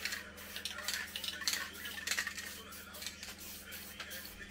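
Aerosol spray-paint can in use, in short irregular hisses of spray mixed with the metallic clicking rattle of the mixing ball as the can is shaken.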